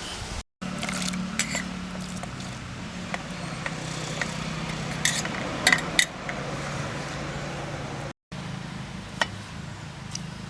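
Metal kitchen vessels and utensils clinking a few times, over a steady low hum. The sound cuts out briefly twice.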